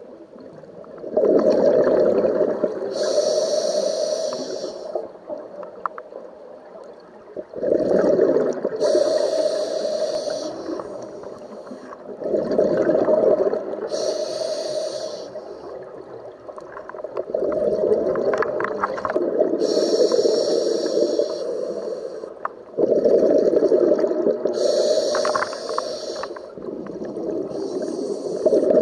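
A scuba diver's own regulator breathing, heard underwater: a hiss on each inhalation through the demand valve alternates with a longer burst of bubbling exhaust bubbles. About five breaths, one every five or six seconds.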